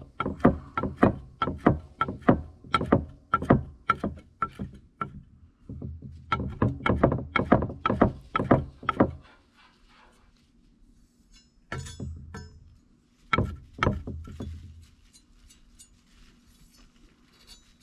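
Knife chopping dill on a cutting board in quick, regular strokes, about two to three a second, with a short break about five seconds in. The chopping stops about nine seconds in, and a few scattered knocks and clicks follow.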